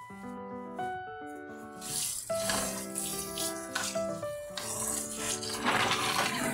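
Kitchen tap water running onto mussels in a plastic colander while hands stir them, the shells rattling against each other; the water starts about two seconds in and is loudest near the end. Background music plays throughout.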